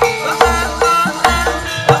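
Javanese gamelan playing at a brisk pace: bronze metallophones ringing over hand-drum strokes in a quick, steady beat.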